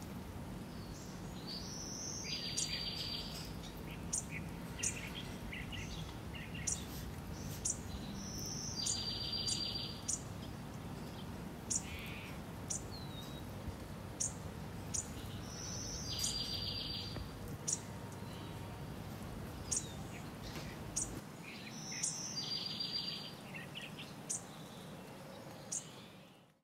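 Recorded birdsong ambience: one bird repeats the same call, a short high note followed by a fast trill, about every six or seven seconds, among scattered short high chirps from other birds. A steady low background noise sits underneath, and it all fades out near the end.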